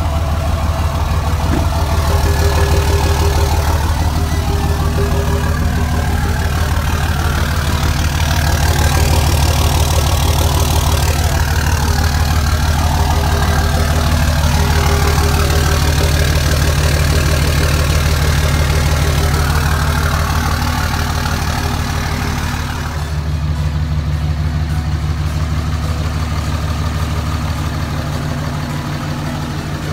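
Third-generation Dodge Ram pickup's engine idling steadily, with an even, fast pulse throughout.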